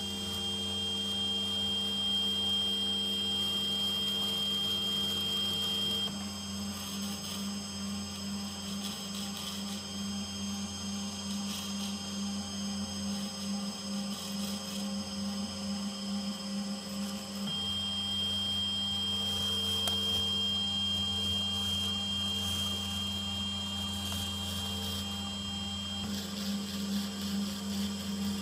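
Desktop CNC PCB milling machine (2020b) running: its spindle motor hums steadily while a V-bit engraving cutter traces the conductor outlines in copper-clad board, and the stepper motors whine as the head moves. A high thin whine stops about six seconds in and comes back later for a while as the moves change.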